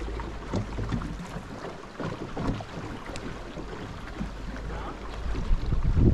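Wind buffeting the microphone over flowing river water, a steady low rumble that swells near the end, with a few faint knocks.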